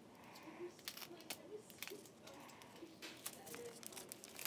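Faint crinkling and tearing of tape as it is handled and wrapped around a plastic fidget spinner, with scattered light clicks.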